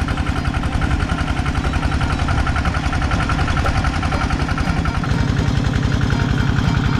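Engine-driven water pump running steadily at constant speed, with a rapid, even firing pulse, pumping water out of a pond.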